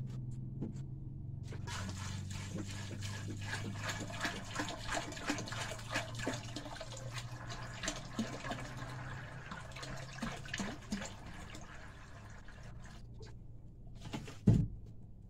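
Water poured from a plastic jerrycan into a metal basin of dry beans, splashing for about ten seconds. A single loud thump comes near the end.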